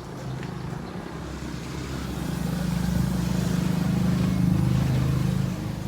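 A motor vehicle engine running with a steady low hum, growing louder over a few seconds and dropping back near the end.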